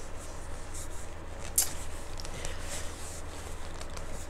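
A paper napkin rustling and crinkling in short bursts as it is handled and wiped at the mouth, with one sharper tap about a second and a half in, over a low steady hum.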